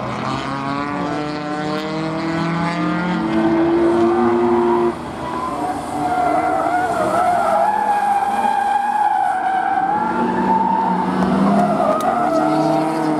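BMW E36 rallycross cars racing: engine note climbing through the first five seconds, a sudden brief drop about five seconds in, then tyres squealing through a tarmac corner.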